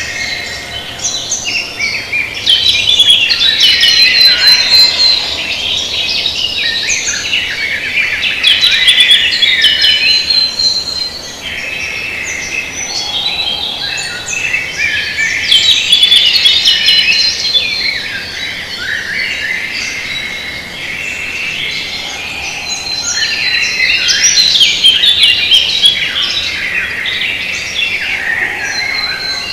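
A chorus of songbirds singing, many chirps and trills overlapping, swelling and fading every several seconds.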